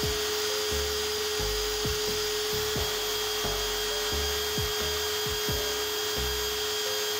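Bench belt grinder running with a fine 150-grit belt as a small axe's edge is ground against it. The motor gives a steady whine over the hiss of abrasive on steel.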